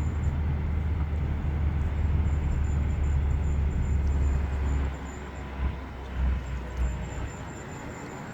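BMW E46 making a strange squeal over a steady low rumble. The rumble drops about five seconds in, followed by three short thumps. The owner finds the squeal goes away when the brake pedal is pressed.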